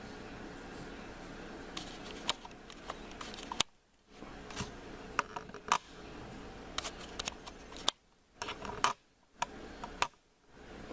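Scattered sharp clicks, one to a few at a time, of a laptop's pointer buttons, over a steady low hum that drops out briefly several times.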